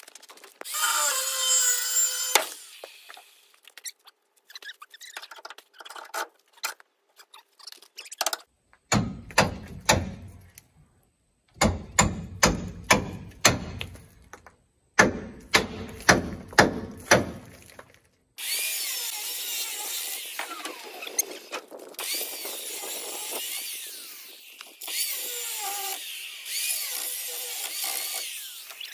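Angle grinder cutting steel, in a short run near the start and a long run in the last third, with a high, gritty whine. In the middle there is a run of sharp knocks on metal, about two a second.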